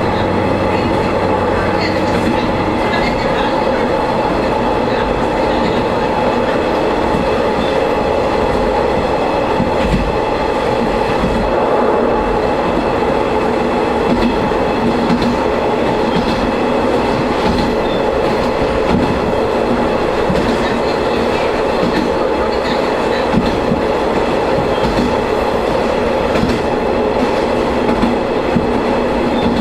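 Shigaraki Kohgen Railway diesel railcar running along the line, heard from on board. Its engine drones steadily, and the wheels click over the rail joints.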